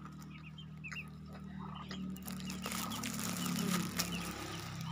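Scattered short, high bird peeps from small birds over a steady low hum, with a patch of hiss and light clicks in the second half; everything cuts off abruptly at the end.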